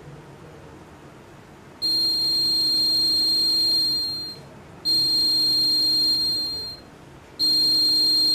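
Buzzer of a homemade laser security alarm sounding a steady high-pitched tone in three long beeps of uneven length, about two seconds each, the first starting about two seconds in: the alarm going off as the laser beam is broken.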